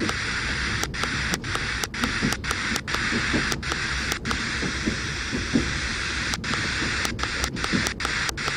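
FM radio hissing with static between stations while it is tuned up the band in steps. The hiss cuts out briefly about twice a second, at each tuning step, over a low rumble.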